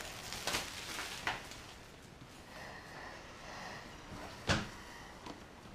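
Handling of a cardboard iPad Pro retail box just stripped of its plastic shrink-wrap: a few light crinkles of the film in the first second or so, then a single dull knock of the box about four and a half seconds in.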